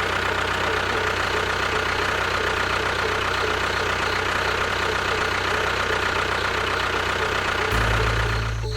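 A small engine or motor running steadily. Near the end a low hum underneath swells louder for about a second.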